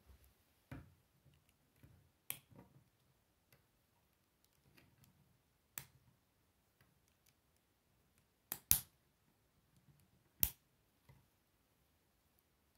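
K'Nex plastic rods and connectors clicking and snapping together as a model is put together by hand: a handful of sharp clicks, the loudest a close pair about two-thirds of the way in and another single one shortly after.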